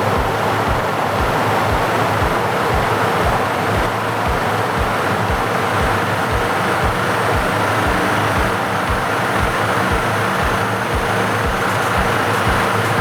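Tanabe top-discharge centrifuge running with a steady, loud mechanical noise and a low thud repeating about twice a second.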